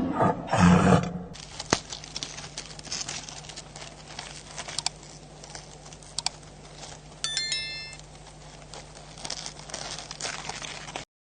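A big cat's roar dies away about a second in. Then come faint crackling with scattered clicks over a steady low hum, and a quick run of short high tones about seven seconds in, before the sound cuts off near the end.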